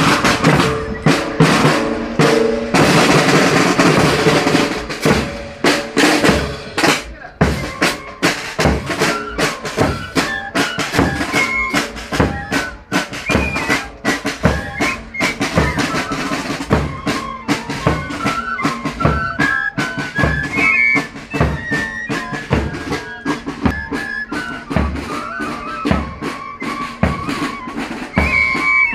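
Marching cadet band playing: snare drum roll and steady bass drum beats, with a high melody line joining the drums about eight seconds in.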